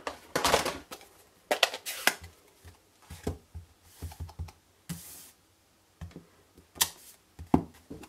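Irregular clicks and taps of a clear acrylic stamp block and a plastic ink pad case being handled, as the block is tapped onto the ink pad and pressed onto card. A short rustle comes about five seconds in.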